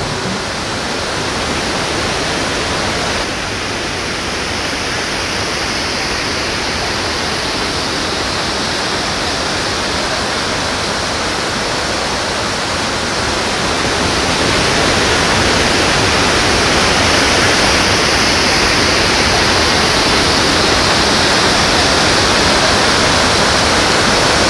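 Gainfeld waterfall rushing: a steady, loud noise of falling water, a little louder from about 14 seconds in.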